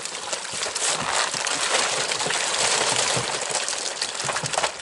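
Water gushing out of a tipped plastic barrel onto a wet tarpaulin, with live young carp flapping and splashing as they slide down it into the water.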